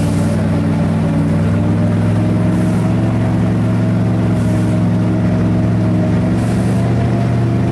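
BRDM armoured scout car's engine running at a steady pitch as the vehicle drives over a grassy track, heard from on top of the hull.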